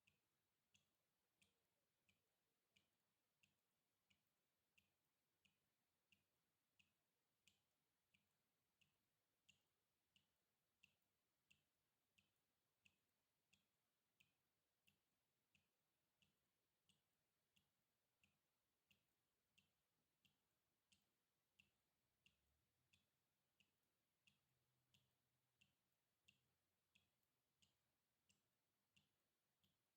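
Faint water drops dripping at a steady, even rhythm, about three drips every two seconds, each a short sharp plink.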